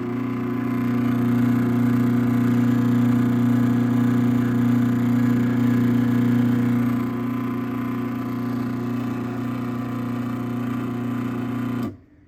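Craftsman 1/2 hp chain-drive garage door opener (model 139.53930DM) running through a door cycle, its motor and chain drive giving a loud, steady hum. It gets slightly quieter about seven seconds in, then stops abruptly near the end.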